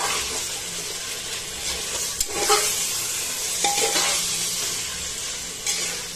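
Mutton pieces sizzling in hot oil and masala in a pressure cooker on high heat, with a metal spatula scraping against the pot several times as they are stirred.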